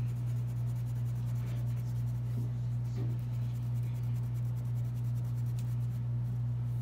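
Red wax crayon rubbing on paper in quick back-and-forth strokes as a segment is coloured in, over a steady low electrical-sounding hum that is the loudest thing heard.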